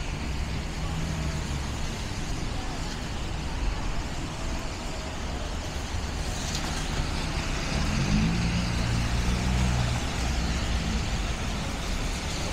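City street traffic: a steady wash of road noise with the low engine drone of passing heavy vehicles, one engine rising in pitch about eight seconds in and then holding.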